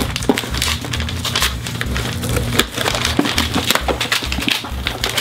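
Packaging being torn open by hand: a dense run of irregular ripping, crackling and crinkling of paper and plastic wrapping, with paper rustling as a letter is unfolded.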